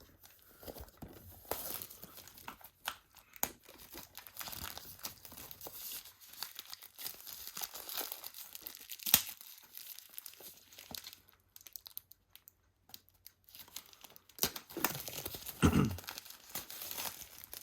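Packaging around a Blu-ray steelbook being ripped open, with continuous tearing and crinkling. There is a sharp crack about halfway through and a heavier handling thump near the end.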